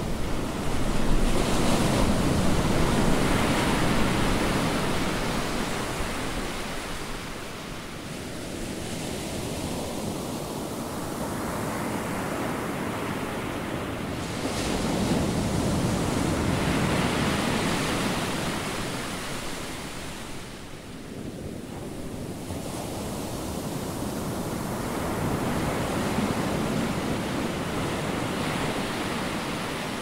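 Ocean surf: waves breaking and washing up the beach, a steady rushing that swells and fades in three long surges.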